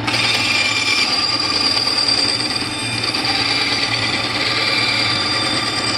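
Bandsaw blade cutting through a wooden letter blank: a steady high whine and rasp of the blade in the cut over the motor's hum, starting as the wood is fed into the blade.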